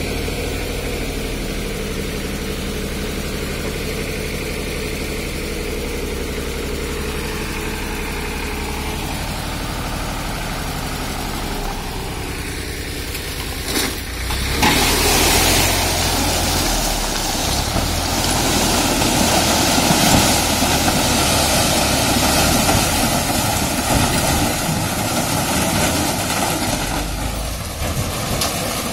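Modified Escort 355 DI tractor's diesel engine idling steadily. About halfway through, the engine runs louder and harder while the hydraulic tipper lifts the loaded trolley to dump its rubble.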